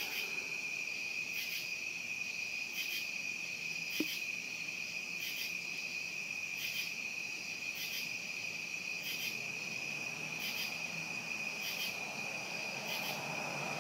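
Crickets calling outdoors at night: a steady high trill, with a short, higher chirp repeating about every second and a quarter. There is a single soft tap about four seconds in.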